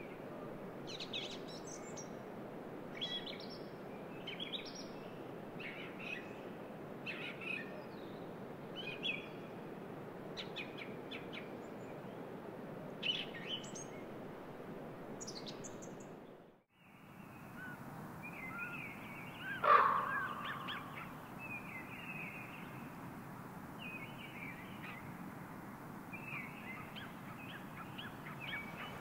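Wild birds singing and calling: short high phrases about once a second over a steady low background hiss. The sound drops out briefly about two-thirds of the way through. A few seconds later one loud, coarse call stands out above fainter chirps.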